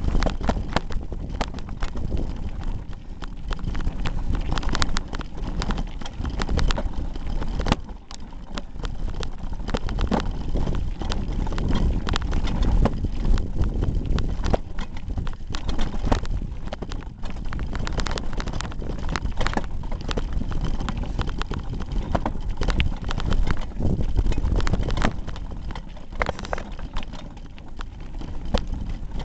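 Hardtail mountain bike ridden over a rough gravel trail, heard from a camera duct-taped to the handlebars: a constant jumble of irregular knocks and rattles as the bike and camera mount jolt over the ground, over a low rumble from the tyres.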